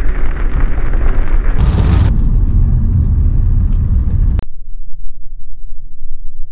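Loud rolling thunder heard from inside a car. About four and a half seconds in, the higher part of the sound cuts off abruptly, leaving only a deep rumble.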